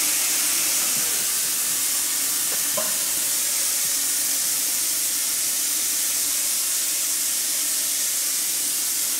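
Special-effects vapour jet blasting into the airplane cabin set: a loud, steady hiss that does not let up.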